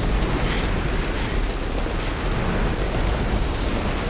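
Avalanche of snow: a steady, deep rushing rumble mixed with windblown hiss, without a break.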